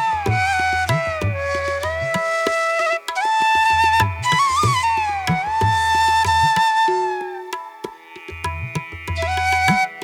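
Background music: a bamboo flute playing a gliding melody in South Indian classical style over tabla-like hand-drum strokes.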